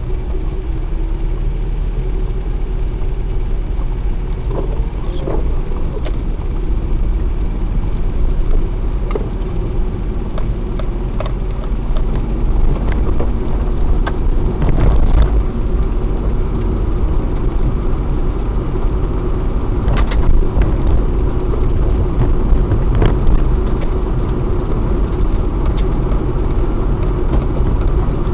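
Car driving at steady speed, its engine and road rumble running continuously, with scattered sharp cracks and knocks of fallen branches and twigs snapping under the tyres.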